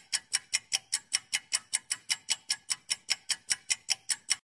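Clock-ticking sound effect for a quiz countdown timer: sharp, even ticks about five a second, stopping abruptly near the end.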